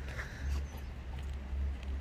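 A dog gives a short high whine right at the start, over a pulsing low rumble of wind buffeting the phone's microphone.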